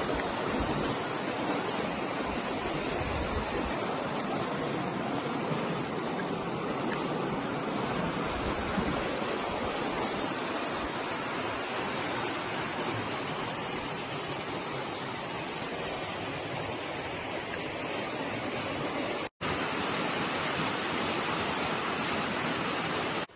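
River rapids rushing over rocks: a steady, even rush of fast white water, broken once by a split-second gap about three-quarters of the way through.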